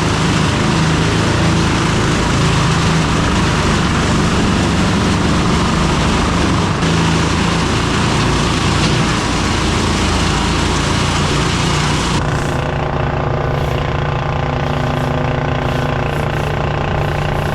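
A vehicle engine running under a loud, rushing noise. About twelve seconds in, the rush stops abruptly and a steady engine idle is left.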